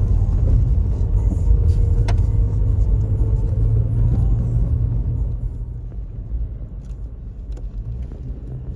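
Steady low rumble of a vehicle driving on a gravel road, heard from inside the cab: engine and tyre noise, easing off a little in the second half.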